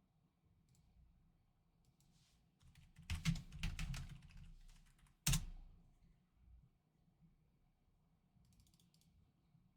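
Trading cards being handled: a cluster of quick clicks and rustles about three seconds in, then a single sharp snap a little after five seconds.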